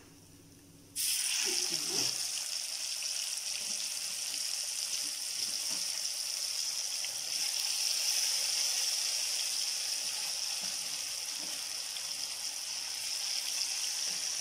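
Masala-coated fish pieces deep-frying in hot oil: a steady sizzle that starts suddenly about a second in, as the fish goes into the oil.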